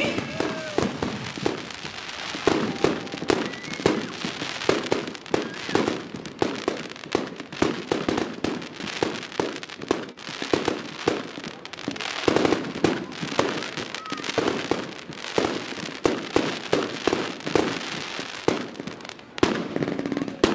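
Fireworks going off: dense crackling made of many quick, irregular sharp pops, easing briefly near the end.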